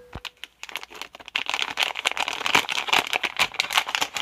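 Plastic blind-bag packaging crinkling and crackling as it is handled and opened by hand; sparse at first, then dense and continuous from about a second in.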